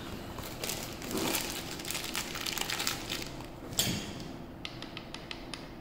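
Handling noise as the grinder and its parts are moved about: rustling, a knock about two-thirds of the way through, then a quick run of small clicks near the end. The grinder is not running.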